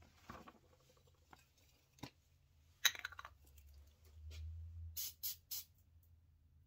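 Paper shop towel rustling while a small carburetor part is wiped, then a sharp click and a louder clatter of small metal parts on the workbench. Near the end come three short hisses in quick succession.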